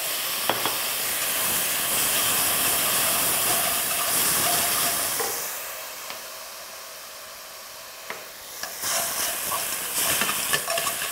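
Julienned burdock and glass noodles sizzling in a frying pan on a gas flame. The sizzle drops away for a few seconds in the middle and comes back near the end with the clicks and scrapes of a spatula stirring the pan.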